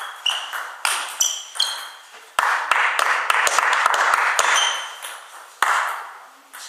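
Table tennis ball clicking sharply, with a short ring, off bats and table in quick succession during a doubles rally. About two and a half seconds in comes a loud rushing noise lasting about two seconds, with thuds in it.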